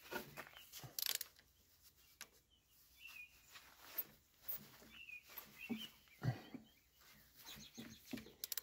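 Faint scattered clicks and taps as the tractor's engine is turned over slowly by hand, checking that the newly fitted starter clears the flywheel. A quick run of clicks comes near the end, and there are brief faint high chirps throughout.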